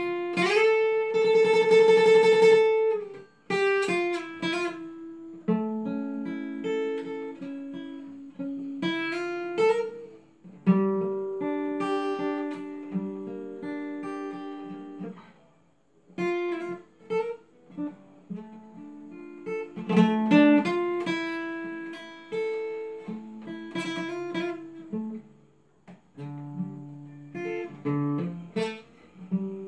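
Solo acoustic guitar played fingerstyle at a slow tempo: a single-note melody over plucked bass notes, each note ringing and fading, with a chord strummed near the start.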